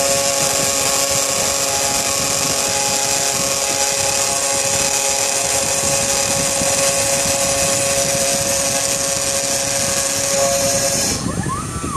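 CNC router spindle with a small end mill cutting a clear plastic panel: a steady high whine over a bright cutting hiss. Near the end the hiss and whine cut off suddenly.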